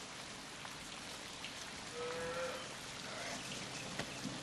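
Faint steady hiss from a film clip's soundtrack played over a conference room's speakers, with a brief faint tone about two seconds in and a soft click near the end.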